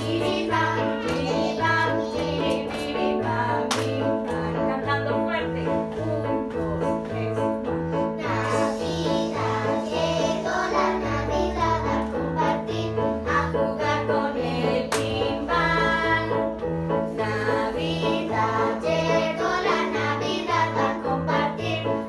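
A group of young girls singing a children's song together over a musical accompaniment with a steady, repeating bass line.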